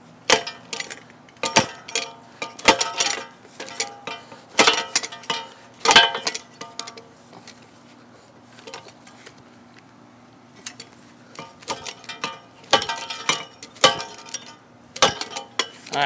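Steel U-lock clanking and rattling against a bicycle frame as it is yanked and twisted by hand: irregular clusters of sharp metallic clinks and knocks, with a lull in the middle.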